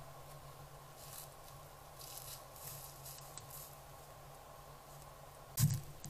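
Soft rustling of dry leaves under a white-tailed deer's steps, over a trail camera's steady electronic hum, with one sudden loud thump near the end.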